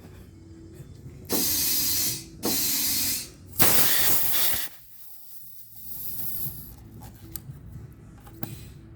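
Compressed air hissing through a tire's valve stem in three short bursts, about a second each, as the tire's pressure is set.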